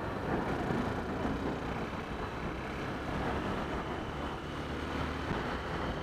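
Motorcycle running along the road, a steady engine sound mixed with wind and road noise on the bike-mounted camera's microphone.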